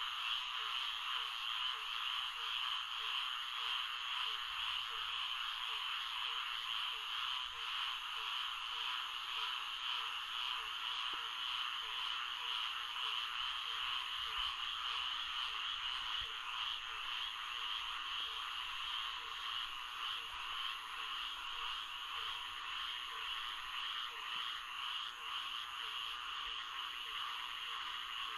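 Florida swamp frog chorus: a dense, steady din of many calling frogs, with a lower call repeating about twice a second beneath it.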